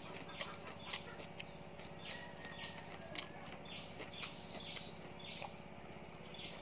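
A person chewing a mouthful of raw green vegetables, with scattered small clicks, while birds chirp repeatedly in the background.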